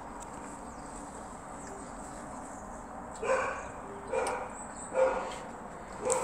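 A run of short animal calls, about one a second, starting about three seconds in over a steady background hiss.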